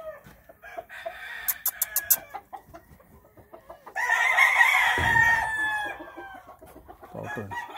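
A gamecock crowing once, a long call starting about four seconds in and falling slightly in pitch at the end, with a few soft clucks before it.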